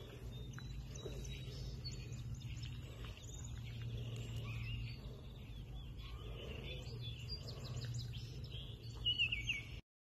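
Small songbirds chirping and calling in woodland, with a louder run of quick falling chirps near the end, over a low steady rumble; the sound stops abruptly just before the end.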